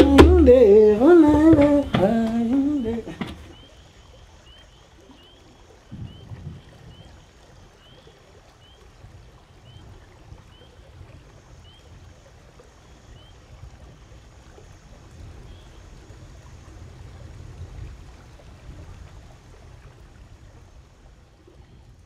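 The closing soundtrack music, a wavering melodic line over percussion, ends about three seconds in. After it comes a faint steady background hiss, and for a while a soft high chirp repeats about every two thirds of a second.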